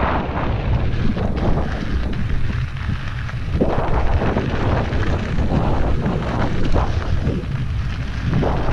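Wind buffeting a camera microphone during a fast mountain-bike descent, a steady heavy rumble, with irregular clatter from the bike over rough trail.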